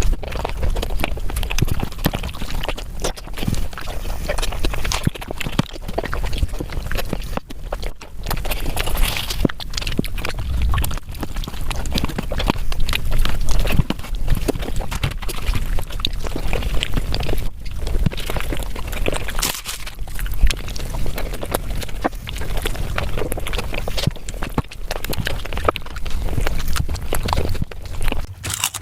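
Close-miked eating sounds: chewing and crunching food, with dense, irregular crunches and clicks.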